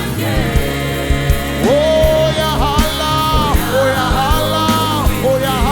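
A live gospel worship band plays an instrumental passage: a steady drum beat under a melody of long held notes that slide up into each note.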